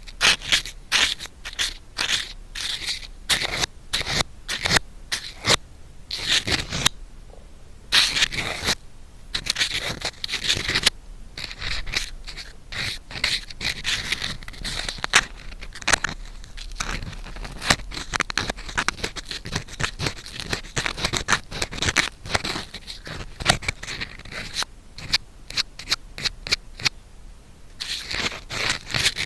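Bamboo ear pick scraping and scratching in a binaural microphone's ear: quick irregular strokes with crackling, broken by a few short pauses.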